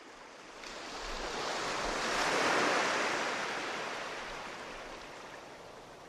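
A steady rushing noise like wind that swells to its loudest about two and a half seconds in, then slowly fades.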